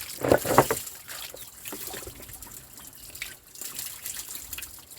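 Water splashing, then trickling and dripping through the gaps of a slatted giral, a dish-washing platform built of stalks, as it is rinsed clean. Two louder splashes come in the first second.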